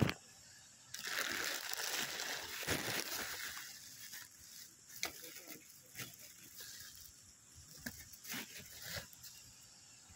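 Rustling for about three seconds, then a few scattered light clicks and knocks from handling packaging and plastic toy track pieces.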